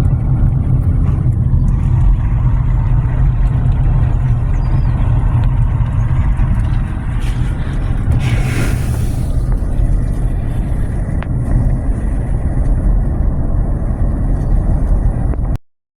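Steady low rumble of a car being driven, road and engine noise, with a brief hiss about halfway through. It cuts off abruptly near the end.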